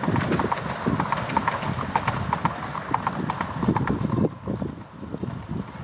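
Wheels of a 7¼-inch gauge miniature railway passenger train clicking rapidly over the rail joints as the loaded wagons pass, quieter after the last wagon goes by about four seconds in. A bird calls briefly in the middle.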